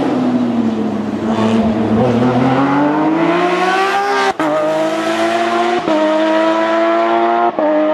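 Porsche 911 GT3 rally car's flat-six engine under hard acceleration. The revs fall for the first second or so, then climb, and there are three quick upshifts about four and a half, six and seven and a half seconds in. Each shift is a brief cut followed by a drop in pitch.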